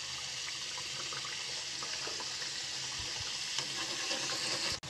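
Gujiyas deep-frying in hot ghee: a steady sizzle and bubbling with faint crackles.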